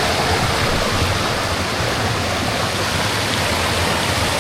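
Steady rush of water from a waterfall, an even hiss with no breaks.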